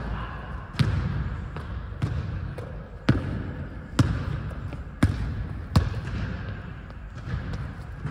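A basketball bouncing on a hardwood gym floor as it is dribbled: sharp bounces about a second apart, each echoing through the large hall.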